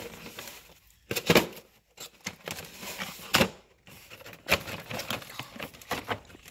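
Cardboard toy box being handled and opened: irregular rustling, scraping and knocks of cardboard and plastic packaging, the loudest about a second in and again near three and a half seconds.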